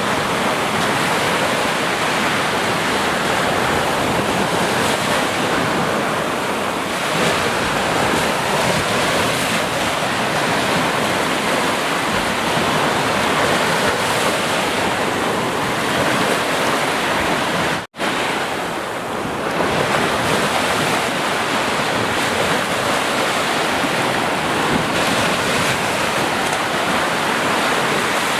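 Sea surf washing continuously on the shore, a steady rushing noise with slow swells in loudness. About two-thirds of the way through, the sound cuts out for a split second and resumes.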